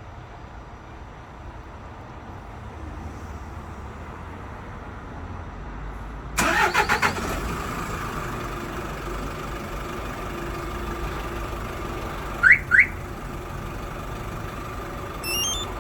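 Hyundai All New Mighty truck's diesel engine remote-started after a preheat delay: about six seconds in the starter cranks briefly in quick pulses, the engine catches and settles into a steady idle. Two short rising chirps sound about twelve seconds in, and stepped electronic beeps begin near the end.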